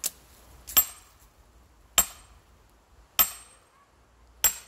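Sledgehammer striking steel splitting wedges driven into a log round, four sharp metallic clanks about a second and a quarter apart, each with a brief high ring, as the wedges are driven in to split the wood.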